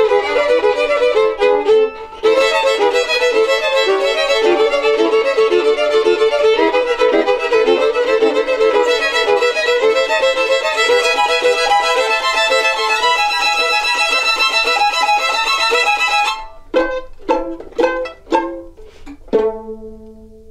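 A trio of violins playing an instrumental piece together. About 16 seconds in, the steady playing breaks into a few short, separate notes, and the piece closes on one held note that dies away.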